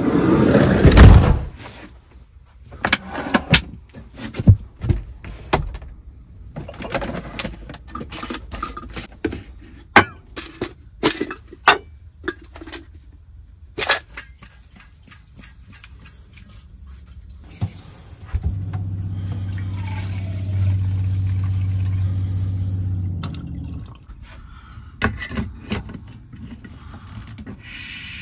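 A camper van's sliding side door slides shut with a heavy thud about a second in. Clicks and knocks follow as the parts of a Jetboil stove are unpacked and handled. Midway a steady low hum runs for about five seconds, with a water-like sound as the Jetboil cup is filled.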